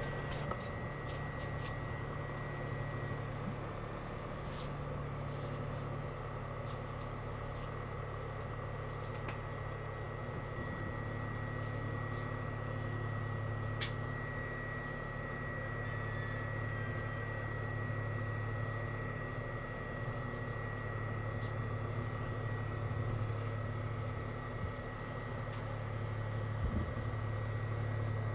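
Portable induction cooker running under a pan: a steady low hum with a thin high-pitched whine over it, and a few light clicks.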